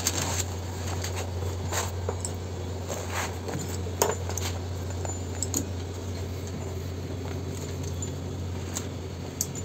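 Scattered light clicks and clinks of metal as a multimeter probe and a round multi-pin metal cable connector are handled, about half a dozen over the stretch, over a steady low hum.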